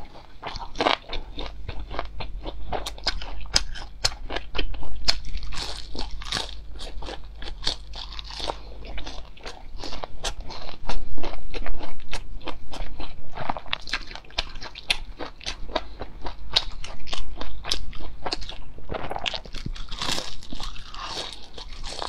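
Crunching and chewing of crisp deep-fried enoki mushrooms: a dense, uneven run of sharp crunches from bite after bite, loudest around the middle.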